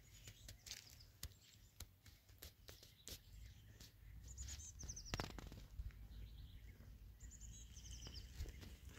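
Faint open-air quiet with a low rumble, broken by small birds chirping: a short falling trill about four and a half seconds in and a quick run of chirps near the end, with scattered light ticks in between.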